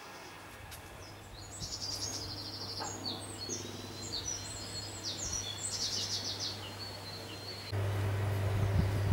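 Small birds singing outdoors in quick, repeated high chirping phrases over a steady low hum. About eight seconds in the birdsong stops and a louder steady low hum takes over.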